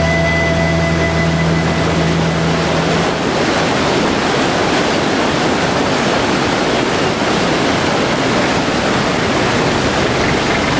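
A held music chord ends about three seconds in, giving way to a steady, loud rushing noise with no pitch to it.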